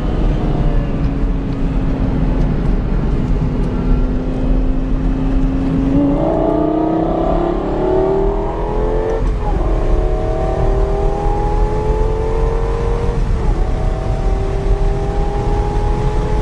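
Lexus LFA's V10 engine heard from inside the cabin. It winds down off the throttle for about six seconds, then pulls hard under full acceleration, its pitch climbing steeply. There are two quick upshifts, about three and seven seconds into the acceleration, each a short break and drop in pitch before it climbs again, over a steady low road and wind rumble.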